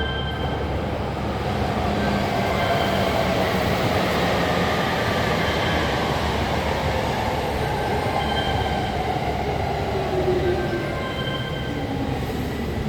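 Electric train running on the line with a steady rumble, a motor tone falling slowly in pitch as it slows, and a little wheel squeal.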